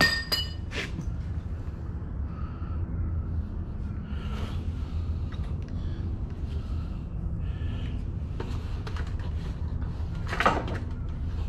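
Workshop handling noises from fitting a generator engine into its metal frame: a sharp metallic clink with a brief ring at the start, scattered small knocks, and a louder knock near the end, over a steady low hum.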